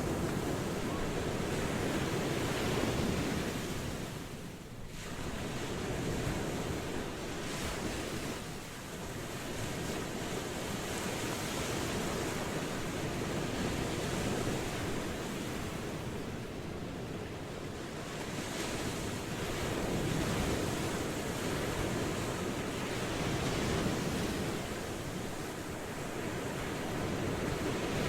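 Ocean waves washing onto a shore, a continuous rushing surf that swells and eases every few seconds.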